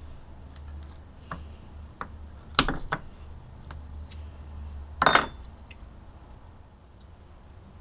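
Wooden parts being pried and knocked loose from a CNC-cut plywood sheet with a small metal pry bar: a few light taps, then a cluster of sharp knocks and cracks about two and a half seconds in. Just past five seconds the pry bar clanks down onto the wood with a short ring, the loudest sound.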